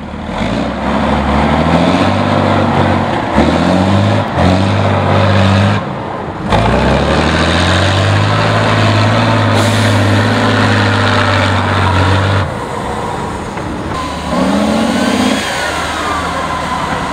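Heavy off-road trial trucks' diesel engines revving hard under load, the pitch rising and falling in repeated surges, with abrupt jumps between takes about six and twelve seconds in.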